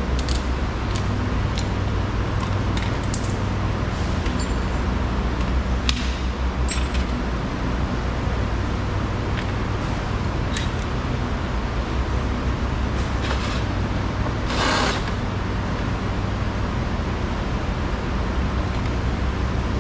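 Small metallic clicks and rattles of a screwdriver and screws being worked out of a car door trim panel, scattered and mostly in the first seven seconds, over a steady low hum. A short rasp about fifteen seconds in.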